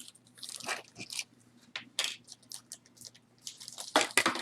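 Jewelry being handled: scattered light clicks and crinkling rustles as pieces are picked up and moved, loudest near the end.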